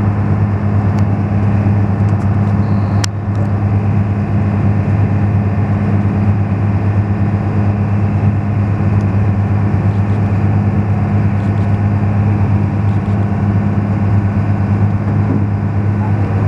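Engine of a small harbour ferry running steadily underway, heard from on board as a loud, even, deep drone.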